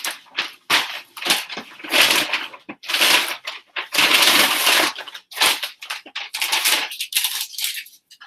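Shipping mailer crinkling and rustling in irregular bursts as a folded garment is stuffed into it and the package is handled.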